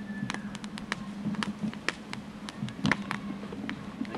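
Irregular sharp clicks and taps over a steady low hum.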